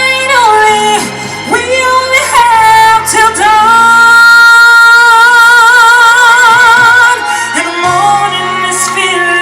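A woman singing over instrumental backing, holding one long note with vibrato through the middle.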